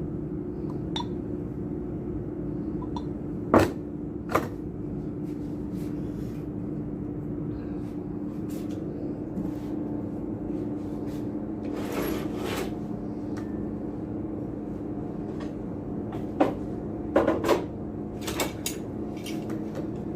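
Metal parts of a disassembled submersible pump being handled, with scattered sharp knocks and clinks over a steady background hum.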